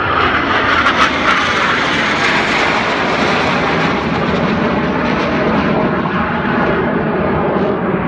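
Engines of a formation of jet display aircraft flying overhead: a loud, steady rushing noise, brightest over the first few seconds.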